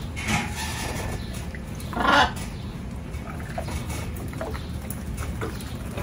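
Canaries bathing in a shallow stone birdbath, fluttering their wings in the water: two short splashes, the louder one about two seconds in, over a steady low background hum.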